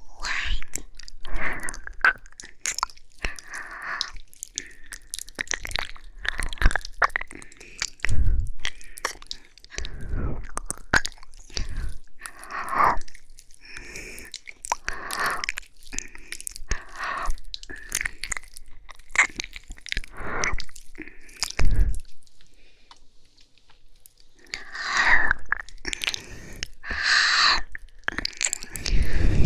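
Close-up ASMR mouth sounds: slow, wet ear licking and kissing right at the microphone, with breaths between. Irregular short smacks and clicks mix with longer breathy swells, with a brief lull about three-quarters through and louder breaths near the end.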